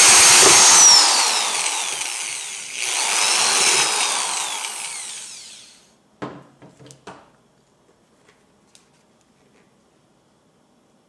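Chicago Electric power drill with a side handle boring a 3/4-inch hole through the bottom of a plastic pail. The trigger is let go about a second in and the motor winds down with a falling whine. It is run up briefly again about three seconds in and winds down once more, followed by a few light knocks as the drill and pail are set on the wooden table.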